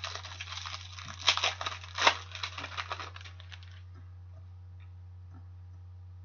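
Hockey trading cards and a paper or plastic sleeve being handled on a table: a run of rustles and small clicks, louder twice, a little after one second in and again about two seconds in, stopping about four seconds in.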